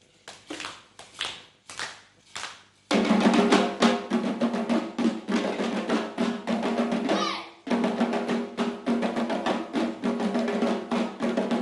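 Doira frame drums: a few separate strokes, then about three seconds in the ensemble comes in together with a fast, dense rhythm that stops briefly a little past the middle and starts again.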